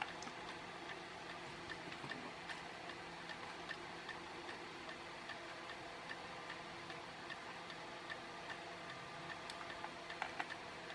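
Faint light clicks and ticks from small electronic components and tools being handled on a circuit board, over a low steady hum, with a few sharper clicks about ten seconds in.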